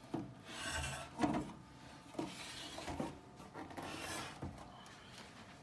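Handling noise: a series of short rubbing and scraping swishes as a metal power amplifier is turned around on a carpet.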